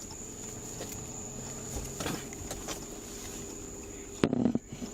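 Faint steady whine and hum of the recording gear with light scattered handling knocks, then a sudden loud knock and a short rustling clatter about four seconds in, as a locked box is opened and gone through.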